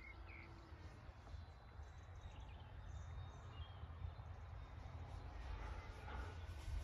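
Wind rumbling low on the microphone, growing stronger toward the end, with a few faint bird chirps, one right at the start.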